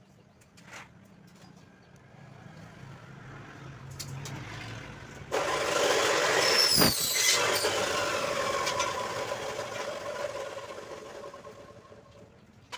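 A vehicle passing close by: its noise builds up, jumps to a loud rush about five seconds in with a brief falling whistle, then fades away.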